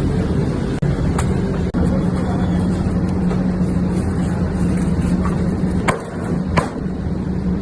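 Steady low mechanical hum with a few short sharp clicks.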